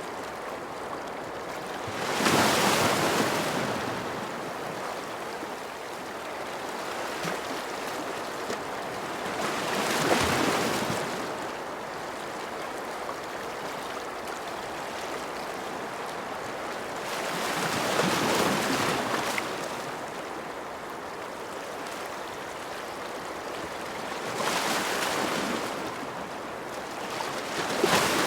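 Ocean waves breaking on a shore: a steady hiss of surf that swells into a louder wash and fades again about every seven to eight seconds, five times in all, the last two closer together.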